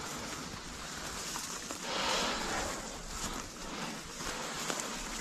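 Footsteps and the rustle of tall weeds brushing against legs and gear while walking through dense undergrowth, swelling about two seconds in.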